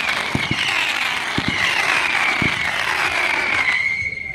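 A swarm of whistling fireworks screaming together, the massed whistle slowly falling in pitch and cutting off near the end, with a few scattered bangs beneath it.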